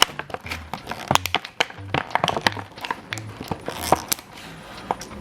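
Irregular clicks and crinkles of small plastic toy pieces and their packaging being handled.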